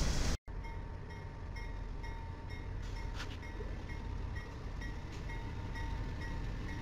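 A loud passing train with its horn cuts off abruptly about half a second in. After that, a bell rings in an even rhythm, two or three strikes a second, over the low rumble of BNSF diesel locomotives moving slowly.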